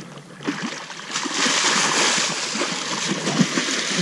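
Water splashing and sloshing as a hooked catfish is drawn in at the surface and thrashes, with a short splash about half a second in and a continuous churning splash from about a second in.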